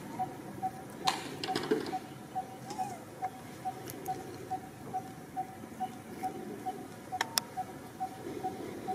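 A bird calling a long, even series of short single-pitched notes, a little over two a second. A few sharp clicks stand out about a second in and again twice around seven seconds.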